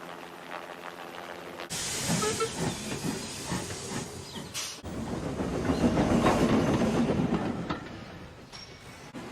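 Steam locomotive sound effects cut one after another: a hiss of escaping steam starts about two seconds in and stops abruptly, followed by a louder rumbling run of train noise that fades near the end.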